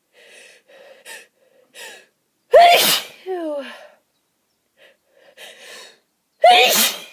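A person sneezing twice, about four seconds apart. Each loud sneeze comes after a run of short, gasping in-breaths as the sneeze builds up, and trails off into a falling vocal sound.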